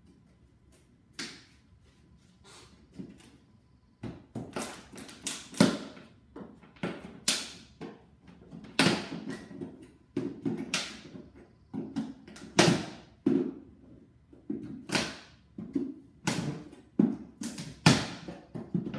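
Hammer striking the end of a wooden shipping crate. Two light knocks come early, then from about four seconds in a long run of sharp, irregular blows follows, roughly one a second or a little faster.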